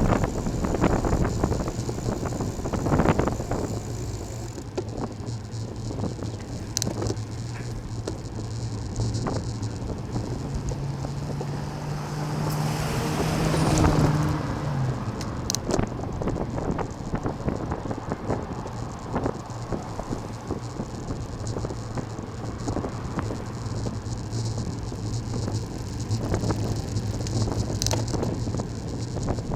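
Wind and road noise on a moving camera with light rattling, and a vehicle passing about halfway through, swelling and then fading.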